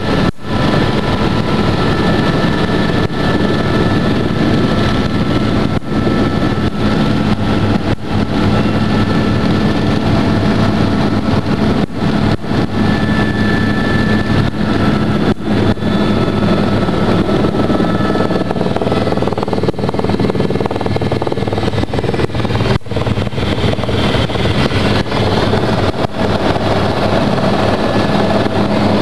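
Helicopter cabin noise: the engine and rotor running loudly and steadily, with a steady high whine over a deep hum, as the helicopter comes in to land.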